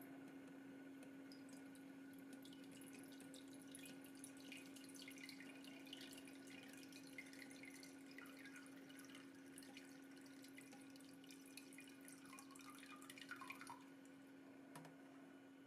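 Faint water trickling and dripping from a 3D-printed faucet-style cat water fountain, over the steady low hum of its small 3–6 V water pump. The trickle dies away about two seconds before the end, while the hum goes on.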